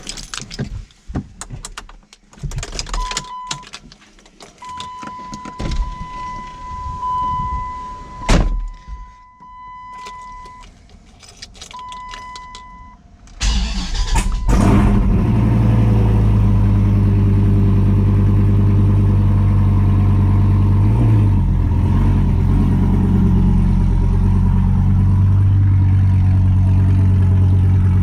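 Dodge Viper's 8.4-litre V10 starting about halfway through, then idling loud and steady with one brief dip in the middle of the idle. Before the start: clicks and knocks, one sharp thump, and a high steady electronic chime sounding on and off.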